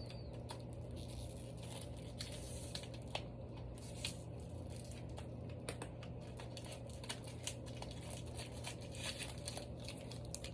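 Faint scattered clicks and crinkling from hands working with slime-making materials, over a steady low hum.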